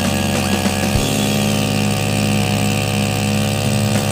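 Chainsaw engine rigged as a boat motor, running steadily.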